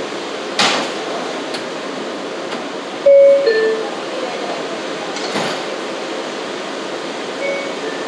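Inside a standing R179 subway car: a steady rushing noise, with a loud metallic clank that rings briefly about three seconds in, and softer knocks at about half a second and five and a half seconds.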